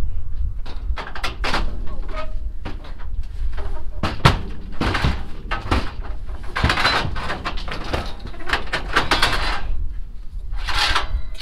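Irregular knocks and rattling from a steel Priefert cattle squeeze chute and its pen panels, with one sharp knock about four seconds in, over wind rumbling on the microphone.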